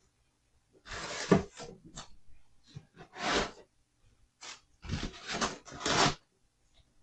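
Rustling, scraping handling noises in several short bursts, with a knock about a second in.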